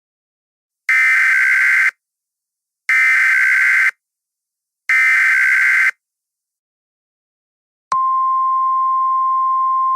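Emergency Alert System SAME header: three one-second bursts of screechy data tones, a second apart. About two seconds after the last burst, a steady single-pitch 1050 Hz alert tone begins and holds.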